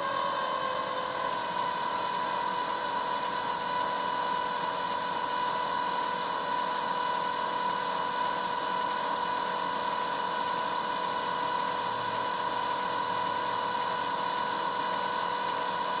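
International DT466 diesel cranking on its starter motor without catching, a steady high-pitched starter whine with no firing: the crank-but-no-start fault being diagnosed.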